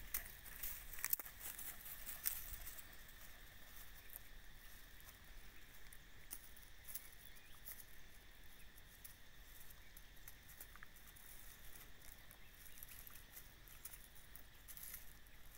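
Faint pattering and rustling of dry leaf litter under puppies' paws, with a few sharper crackles in the first two or three seconds, then only light rustles over a faint steady outdoor background.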